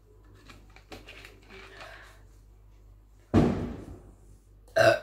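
A woman burps loudly about three seconds in, and a second burp begins near the end, after chugging fizzy cumin masala soda. Before the burps there are faint clicks from the plastic soda bottle being handled.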